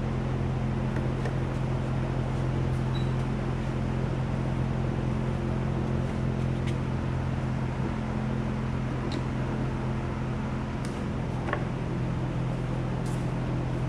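Steady electric hum of a large drum shop fan, with a few light clicks and knocks as a battery-powered fuel transfer pump and its hose are fitted to a plastic diesel can.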